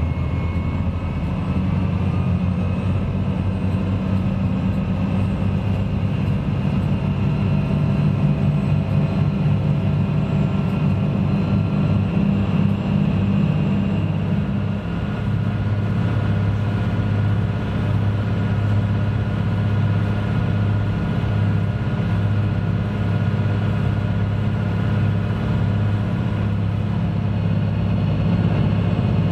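Ferry engines droning steadily, heard from inside the passenger cabin: a loud, continuous low hum whose tone drops slightly about halfway through.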